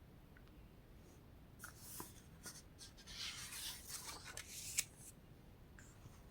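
Faint rustling and scraping with several sharp clicks, starting about a second and a half in and loudest around three to five seconds in.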